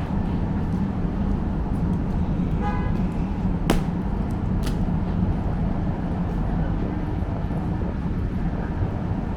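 Steady city street traffic rumble, with a brief vehicle horn toot about three seconds in and two sharp clicks shortly after.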